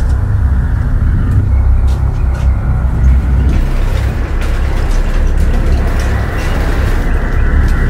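A steady low rumble, with a sectional garage door rattling and rolling on its tracks as it is pushed up by hand from a few seconds in.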